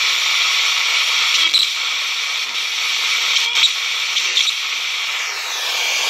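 FM radio static hissing steadily from a small oval speaker driven by an Arduino-controlled TEA5767 FM radio module and amplifier, with a few short chirps over it. The builder ties the chirps to the board lights flickering in step: the amplifier draws too much power from the Arduino's USB supply.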